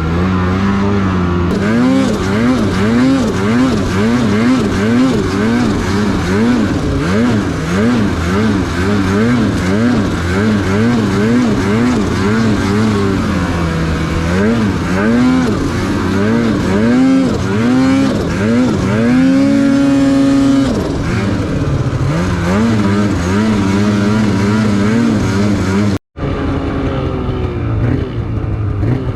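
Snowmobile engine revving up and down over and over, about twice a second, as the throttle is worked while riding, with one longer climb to a held high pitch about two-thirds of the way through. It cuts off abruptly for an instant near the end, then resumes.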